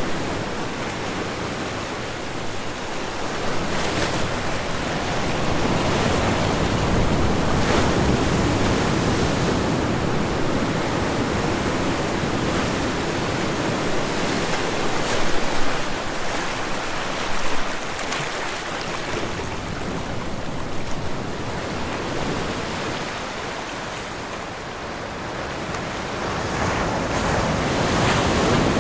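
A rushing, surf-like noise from the sound installation that swells and ebbs slowly, with a few faint clicks. It dips to its quietest a little after the middle and rises again near the end.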